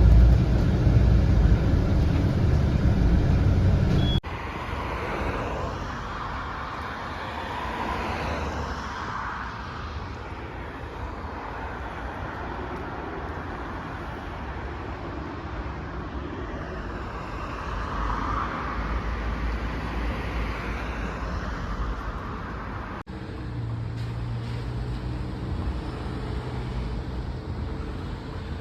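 Road traffic noise across several short clips. It opens with a bus engine's low rumble heard from inside the moving bus, then cuts to quieter street traffic with vehicles passing, swelling twice. After a second cut a steady low engine hum joins the traffic.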